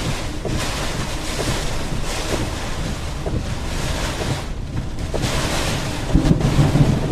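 Storm wind buffeting the microphone over a steady rush of water from rain and floodwater, with stronger gusts about six seconds in.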